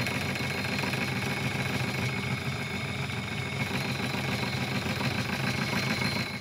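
Metal lathe running steadily, its tool turning the rough edge of a thick brass wheel blank to bring it round.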